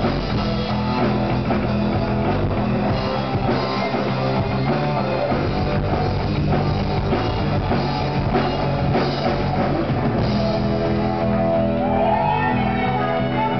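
Live rock band playing: electric guitar, bass guitar and drum kit. A singing voice comes in near the end.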